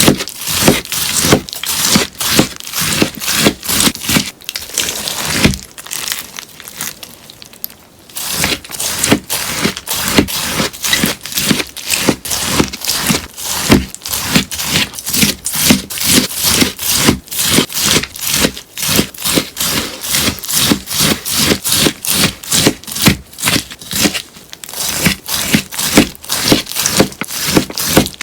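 A melamine sponge being cut again and again with crisp, crunchy strokes, about two or three a second, with a short lull about six seconds in.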